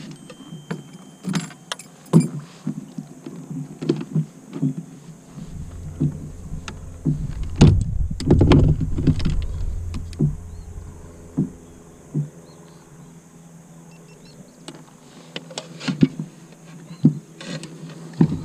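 Scattered knocks, clicks and light rattles of fishing gear being handled in a plastic kayak, with a low rumble from about five to eleven seconds in.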